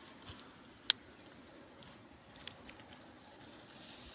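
Faint rustling of grass and leaves as a hand brushes through them, with a few small ticks and one sharp click about a second in.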